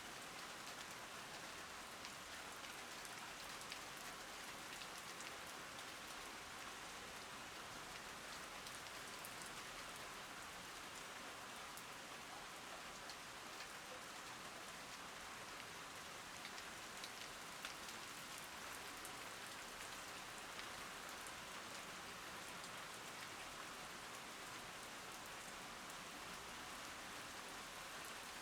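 Steady rain falling, an even hiss with scattered sharp ticks of single drops striking.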